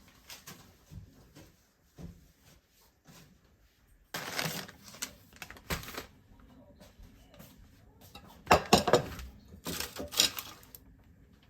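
Kitchen handling noises: dishes and utensils clattering in a few irregular bursts, the loudest about two-thirds of the way in, with small clicks and knocks between them.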